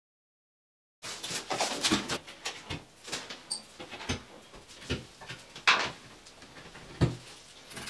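Irregular clicks, knocks and scrapes of tiling work: hands handling ceramic wall tiles, a cardboard tile box and plastic tile spacers. The sound starts about a second in, with two louder knocks in the second half.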